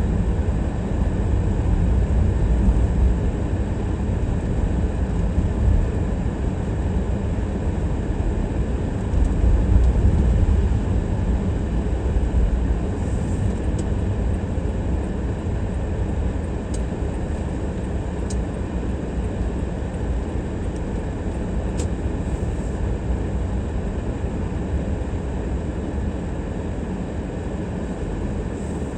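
Steady low rumble of a car driving: road and engine noise, with a few faint light ticks.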